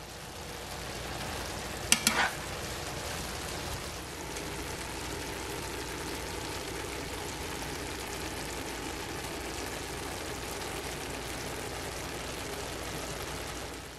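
Stir-fried noodles with pork and vegetables sizzling steadily in a nonstick frying pan. A single sharp knock sounds about two seconds in.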